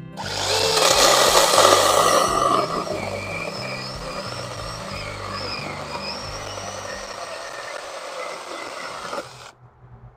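Battery-powered IMOUMLIVE 6-inch mini chainsaw with brushless motor cutting through a square wooden post. It is loudest for the first couple of seconds, then settles into steadier cutting with a wavering motor whine. It cuts off suddenly near the end.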